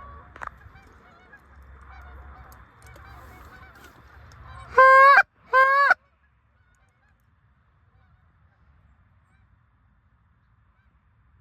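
A flock of Canada geese honking faintly, then two loud, close honks on a hunter's goose call about five seconds in.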